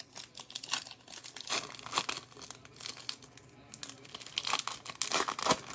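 A trading card pack wrapper crinkling and tearing as it is opened by hand, in a run of short, irregular crackles.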